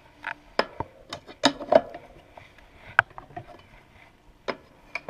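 Irregular sharp clanks and knocks of a wrench and bike pedal being worked on, about eight in all, most of them in the first two seconds, then single knocks about three and four and a half seconds in.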